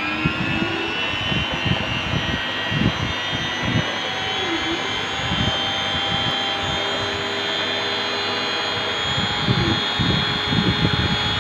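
Handheld rotary tool serving as the spindle of a DIY CNC router, running at high speed with a steady whine as its bit cuts into MDF. Irregular low knocks and brief shifting tones come from the machine as it works.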